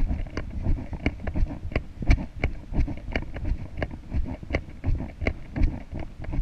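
A horse cantering on sand arena footing: a steady rhythm of thudding hoofbeats, a few each second.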